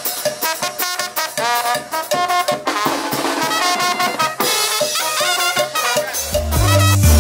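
Small brass band playing a lively tune: trombone, trumpet and clarinet over a bass drum with cymbal and timbales. Near the end, a deep bass line from recorded music comes back in.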